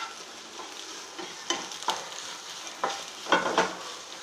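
Scrambled egg frying in oil in a nonstick pan with a steady sizzle, while a wooden spatula stirs and breaks it up, scraping the pan several times.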